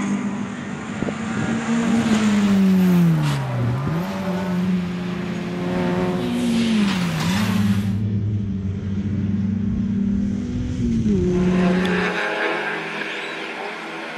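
Citroën Saxo VTS race car engines running at high revs past the trackside. The pitch falls twice as they brake and shift down, then climbs again under acceleration. The sound jumps abruptly twice, about halfway through and near the end.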